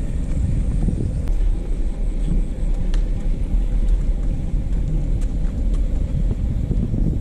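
Wind buffeting a moving action camera's microphone: a steady low rumble that rises and falls, with a few faint clicks.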